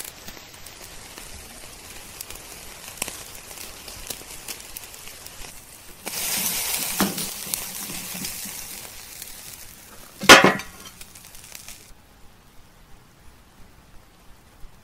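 Thick bone-in steak sizzling on a hot grill grate over charcoal, the final high-heat sear of a reverse sear. The hiss starts suddenly partway through and cuts off a few seconds later, with metal tongs clinking on the grate and one loud sharp clatter between.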